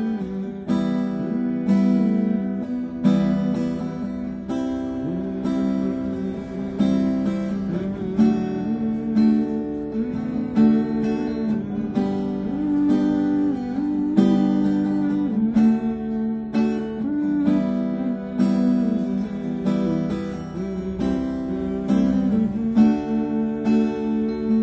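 Acoustic guitar strummed in a steady rhythm, moving through a chord progression.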